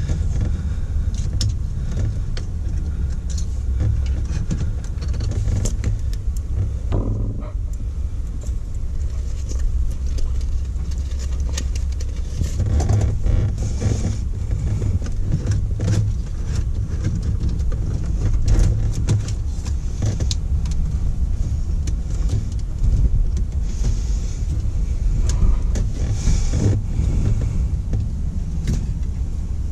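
Scattered clicks and rattles of a car radio being pulled out of the dashboard and its plastic wiring connectors handled, over a steady low rumble.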